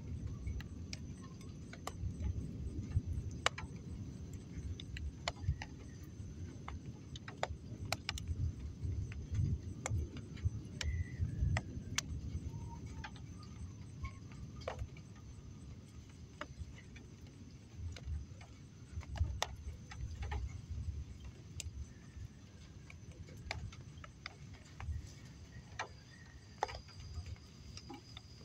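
Outdoor night ambience during a storm: an uneven low rumble that rises and falls, with scattered sharp ticks and clicks, a few short high chirps and a faint steady high tone.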